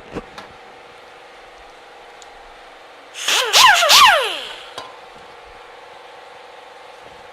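Small power tool running steadily with a constant whine, then a loud burst of cutting into the thin steel utensil holder about three seconds in, lasting over a second, its pitch dropping in several sweeps as the tool bites.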